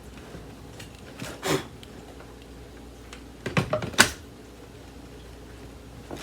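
A few knocks and clicks of handling: a soft knock about a second and a half in, then a short cluster of knocks ending in a sharp click about four seconds in.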